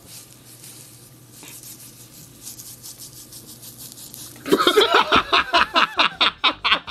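Faint sizzle of food frying in a pan, then about four and a half seconds in a man bursts out laughing, loud and in quick repeated bursts.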